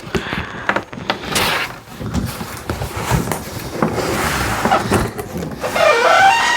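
Cardboard box and packaging being handled and opened: rustling, scraping and irregular knocks. Near the end comes a brief wavering pitched sound.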